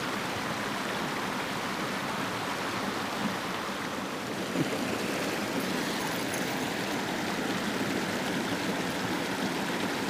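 Creek water rushing steadily over rock cascades in a small waterfall, with one brief knock about halfway through.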